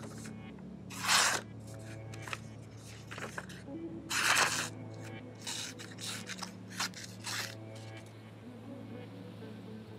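Knife edge slicing through a hand-held sheet of paper in a sharpening paper-cut test: a few short rasping cuts, the loudest about a second and four seconds in, then lighter strokes and paper rustles. The freshly sharpened edge is still tearing the paper in places rather than slicing cleanly.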